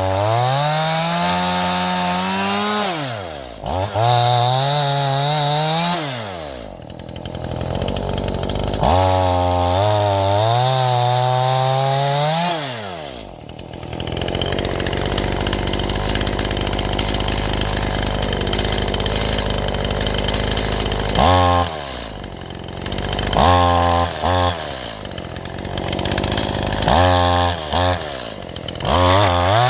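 Stihl MS181 two-stroke chainsaw revving up and down in long swells, then held under load through a cut in firewood for about seven seconds midway, then given short, quick blips of throttle near the end.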